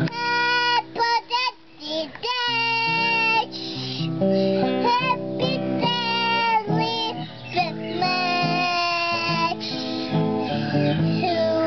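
A three-year-old girl singing a song, accompanied by an acoustic guitar.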